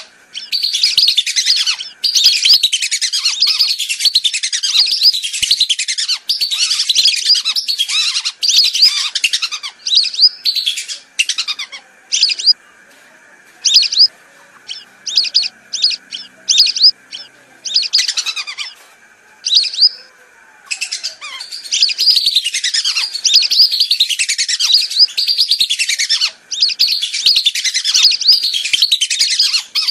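Whistling-duck lure call: many high whistled calls, packed closely together. In the middle stretch they thin out to separate single whistles for several seconds, then come thick again.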